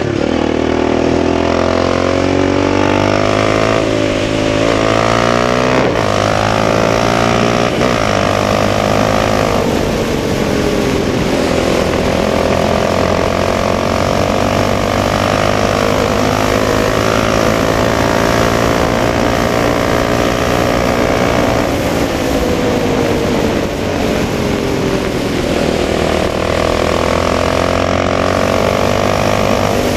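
Yamaha Raptor 700R ATV's single-cylinder four-stroke engine running under load at road speed, its pitch rising and falling with the throttle, with a few drops in pitch along the way.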